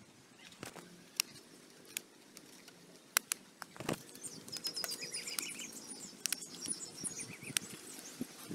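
Scattered sharp clicks and taps from hands working a bamboo trap stick into the ground, the loudest a little after three seconds in and near four. Small birds chirp in the background from about halfway through.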